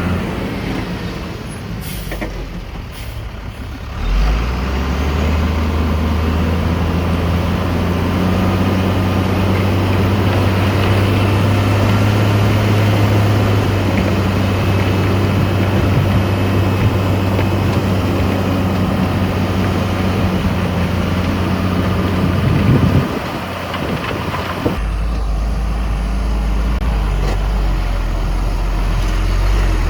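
Heavy diesel engines of earthmoving machinery running steadily. The engine note rises and loads up about four seconds in, breaks off near the end, and a deeper steady engine note takes over.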